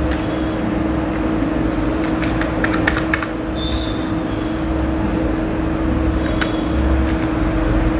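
A steady hum with a low rumble underneath, and scattered, irregular clicks of keys being typed on a computer keyboard.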